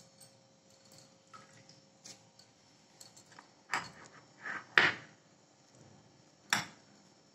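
Metal spoon clinking and scraping against a small bowl as khoya is scooped out: soft ticks at first, a few louder clinks a little past the middle, and one sharp clink near the end.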